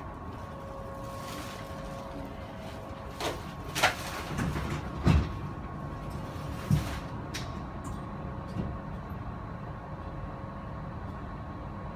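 Steady hum inside a train carriage with a faint whine, broken by four clunks and knocks of doors or fittings, the two loudest about four and five seconds in.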